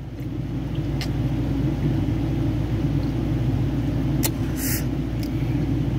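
Steady low rumble of a running motor, with a couple of faint clicks and a brief hiss about four and a half seconds in.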